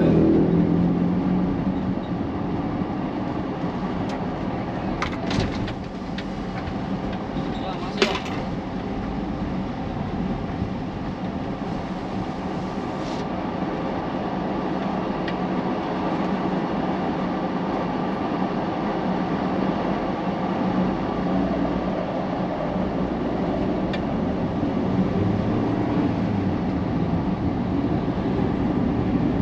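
Steady vehicle engine drone and road traffic noise while driving through city streets, with a sharp click about eight seconds in.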